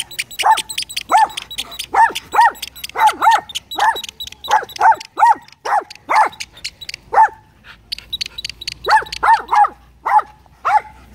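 Small fluffy white dog yapping at a larger dog: a string of short, high-pitched barks, singly and in quick runs of two or three, with a pause of a couple of seconds past the middle.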